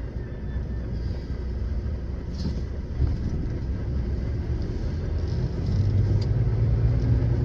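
Lorry's diesel engine running with a steady low rumble, growing louder about two-thirds of the way in.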